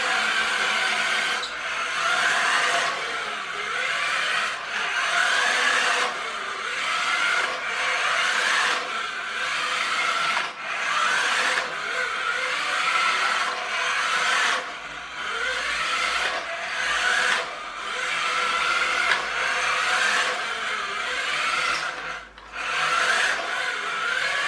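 Battery-powered wired-remote toy car's small electric drive motor and gearbox whirring as it is driven in short runs, stopping and starting every few seconds, the whine rising in pitch as each run gets going.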